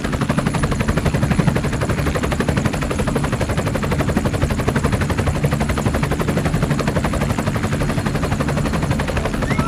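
Helicopter rotor chopping in a rapid, steady beat.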